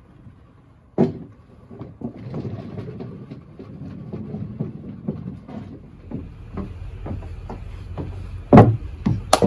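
A walk-behind lawn mower, engine off, pushed by hand across wooden deck boards: its wheels rumble and click as they roll over the board gaps, after a single knock about a second in. Two heavy footsteps thump on the deck boards near the end.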